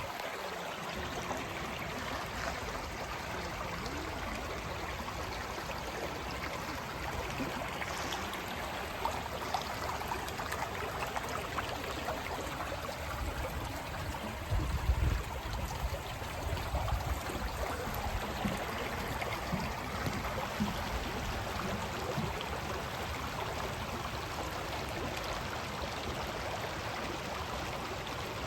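Water running in a stream, a steady trickling rush, with a few low bumps about halfway through.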